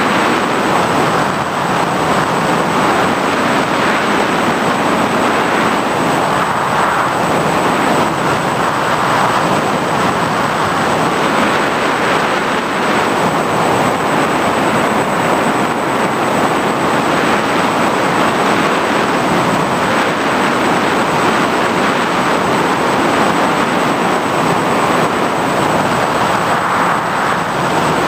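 Onboard sound of an FPV model aircraft in flight: steady motor and propeller noise mixed with wind rush, with a thin, constant high-pitched whine above it.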